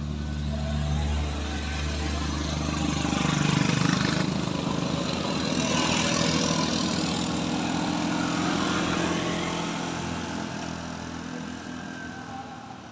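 Motor vehicle engines on a steep climb: a car's engine running steadily as it passes at the start, then engine and road noise swelling twice and slowly fading away near the end.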